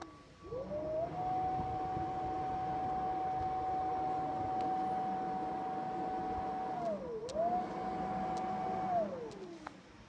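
Electric blower motor spinning up to a steady high whine. About seven seconds in it dips briefly and comes back up, then winds down near the end.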